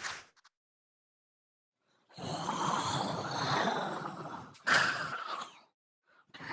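Horror sound effect of a ghostly, breathy exhale, about two and a half seconds long. A second, shorter and sharper breath follows right after it.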